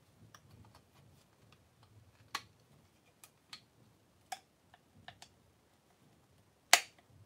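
Plastic parts of a Power Rangers Dino Fury Ptera Freeze Zord toy clicking and snapping as it is handled and transformed: irregular sharp clicks, with the loudest snap near the end.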